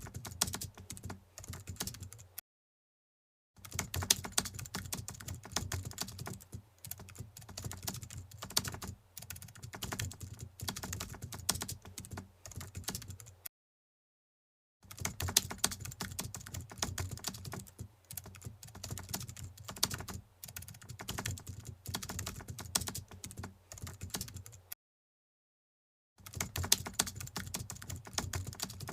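Typing on a computer keyboard: rapid runs of key clicks, cut by three short stretches of dead silence.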